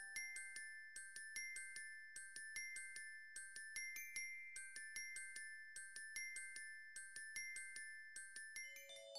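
Background music: a quick, high melody of struck, bell-like notes, about four or five a second, each ringing briefly.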